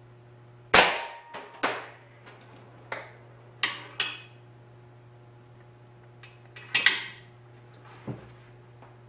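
Sharp metallic clacks and knocks from working the breech-loading bolt action of a homemade .177 airgun: about ten separate hits in uneven clusters, the loudest just under a second in and another near seven seconds.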